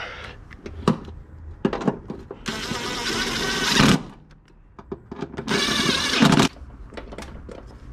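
Cordless impact driver with a socket extension hammering a bolt tight, in two runs: one of about a second and a half, then a shorter one of about a second. Light clicks and taps of the tool come between them.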